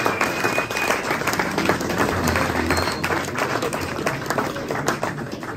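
Crowd applauding, with dense clapping that thins and fades gradually toward the end.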